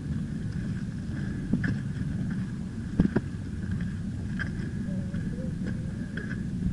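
Wind rumbling on a handheld camera's microphone while walking on a dirt trail, with a few scuffing knocks from footsteps, the sharpest about three seconds in.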